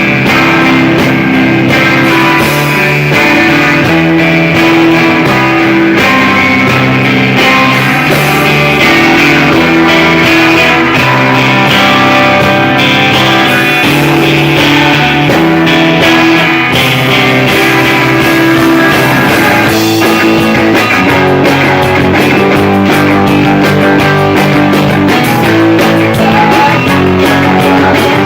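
Guitar-led rock band playing loud and steady, recorded live, with plucked guitar lines over bass and drums.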